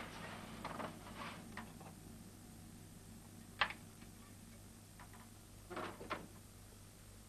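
A few faint, scattered clicks and taps over a low steady hum, with one sharper click about three and a half seconds in and two more close together about six seconds in.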